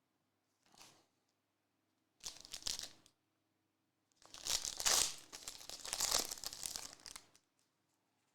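A trading card pack's wrapper being torn open and crinkled: a short rustle, a tearing burst, then a longer, louder stretch of crackling wrapper noise.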